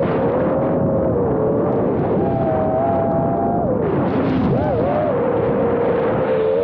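Five33 Switchback Pro FPV quadcopter's motors and propellers whining in flight, the pitch sliding up and down with throttle and dipping then jumping back up about four to five seconds in, over a steady rush of wind and prop noise.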